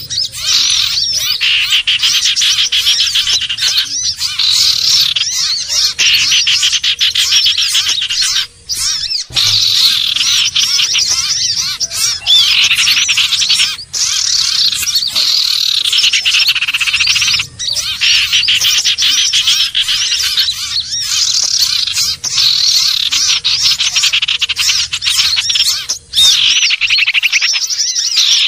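Common iora (sirtu/cipoh) lure call: dense, continuous high-pitched chattering and fast trills with swooping notes, broken by a few brief gaps.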